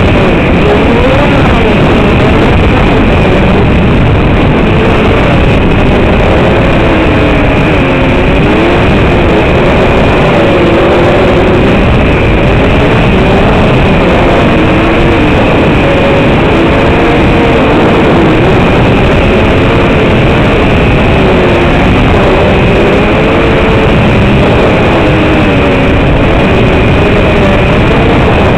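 Brushless motors of an LKTR 120 FPV racing quadcopter in flight, their whine rising and falling in pitch with the throttle over a heavy hiss, with a steady high tone behind.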